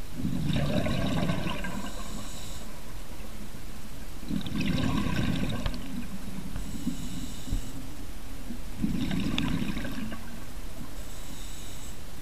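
Scuba diver breathing through a regulator underwater: three gurgling bursts of exhaled bubbles about four seconds apart, with fainter hissing inhalations between them.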